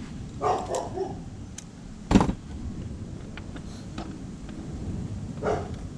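A dog barks briefly near the start and again near the end. A single sharp knock, the loudest sound, comes about two seconds in.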